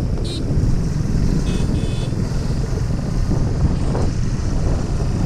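Suzuki Gixxer 155's single-cylinder engine running as the motorcycle rides over a rough unpaved road, a steady low rumble mixed with wind on the microphone.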